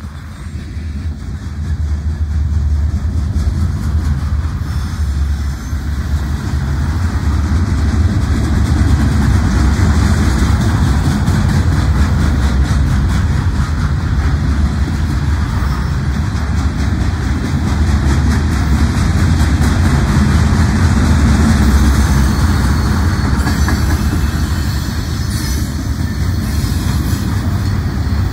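Freight train flatcars loaded with steel pipe rolling past close by: a loud, steady rumble of steel wheels on the rails that builds up over the first couple of seconds.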